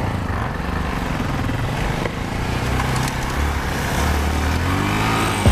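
Yamaha XT660Z Ténéré's single-cylinder engine running under throttle on a dirt road, rising in pitch near the end, with wind rushing over the bike-mounted microphone.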